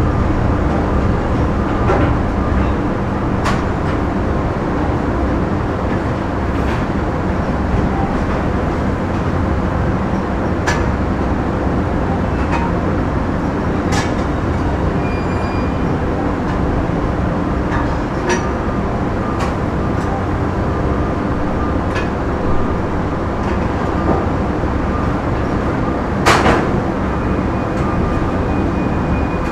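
Factory ambience: steady machinery noise and hum, with scattered sharp knocks and a louder knock that rings briefly near the end.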